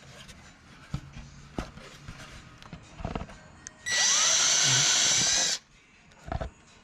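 A power drill spins up and runs for about a second and a half, boring out a hole in a plastic skid plate to enlarge it, then stops suddenly. A few light knocks of handling come before it.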